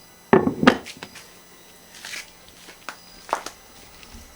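Kitchen handling sounds of a cooking pot and utensils: a short clatter about a third of a second in, then a few light knocks and taps.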